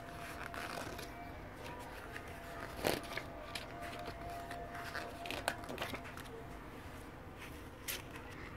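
Faint handling noise from a CD booklet and case: paper pages being turned and rubbed under the hand, with scattered rustles and light clicks, the loudest about three seconds in.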